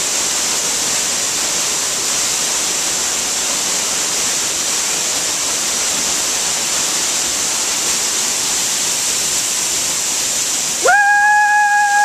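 Steady rush of a waterfall pouring down a rock face. About a second before the end, a person lets out a long, high, held yell that then bends down in pitch.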